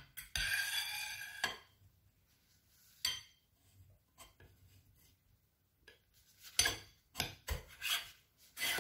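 Air rifle shroud sliding over the barrel: a scraping rub with a slight ring for about a second, a single knock about three seconds in, then a run of sharp clicks and taps near the end as the shroud is worked into place.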